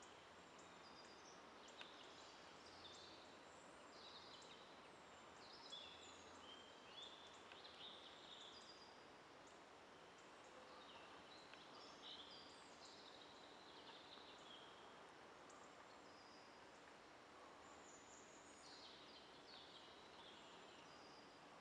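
Faint songbirds singing and calling: short high chirps and warbled phrases scattered throughout, over a faint steady background hiss.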